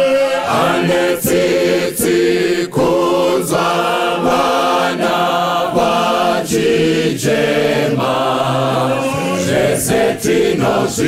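Mixed choir of men and women singing a gospel song in harmony, with a male lead voice on a microphone.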